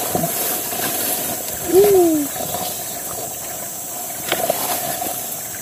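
Steady drone of tropical insects in an overgrown orchard, with faint rustling and snapping of grass and leaves as someone pushes through and parts the undergrowth by hand. About two seconds in comes a single short call that rises slightly, then slides down in pitch.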